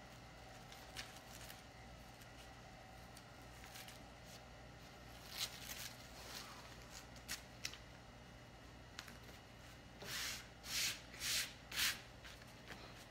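Hands handling and rubbing a plastic stencil transfer sheet flat onto a canvas: soft scattered crinkles, then four short swishes near the end as the sheet is smoothed down.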